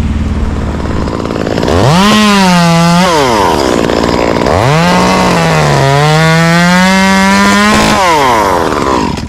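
Two-stroke chainsaw idling, then revved to full throttle twice. During the second, longer run the pitch sags briefly and recovers as the saw cuts through a limb, then drops back to idle near the end.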